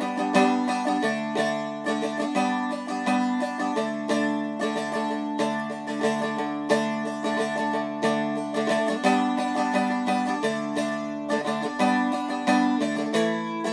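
Seagull Merlin M4, a four-string fretted dulcimer-style instrument, picked steadily. A melody of quick, sharply attacked notes moves through chord changes while the drone strings ring on underneath.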